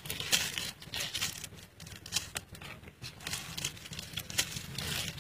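Clear plastic grafting film being stretched and wound tightly around a guava graft union, crinkling and crackling in quick irregular crackles.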